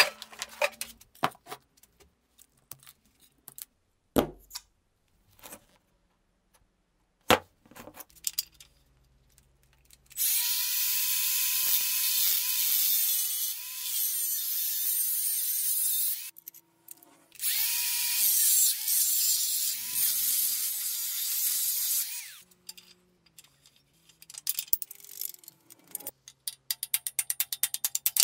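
Small angle grinder with a thin cutting disc cutting through the welds on the steel laminations of a microwave oven transformer: two loud cuts of about six and five seconds, each a dense hiss over a steady whine. Before them, scattered clicks and knocks of metal being handled; near the end, a quick run of small metallic taps as a chisel is worked into the cut seam.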